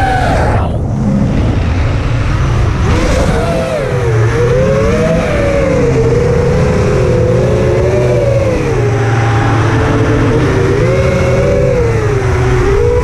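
FPV quadcopter's brushless motors and propellers whining, several pitched tones rising and falling together as the throttle changes, over a steady low rumble.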